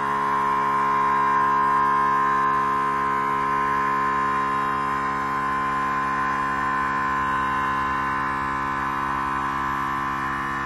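Air Lift WirelessAIR onboard 12-volt air compressor running steadily, a droning hum with a whine over it, while it fills the truck's rear air helper springs from 5 to 20 psi.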